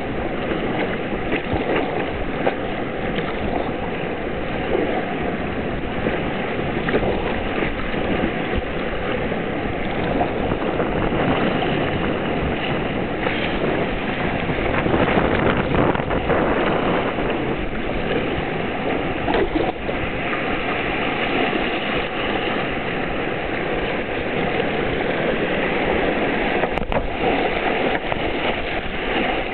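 Whitewater of a river rapid rushing and splashing steadily around an inflatable kayak, heard from on board.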